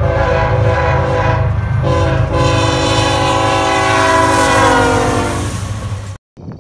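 Locomotive air horn sounding a chord of several tones over a low rumble. A blast, a brief break, then a long blast that falls in pitch near the end, cut off abruptly about six seconds in.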